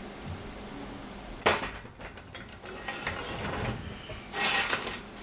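Pieces of steel being handled and shifted: a sharp knock about a second and a half in, scattered clinks and rubbing, then a scrape near the end.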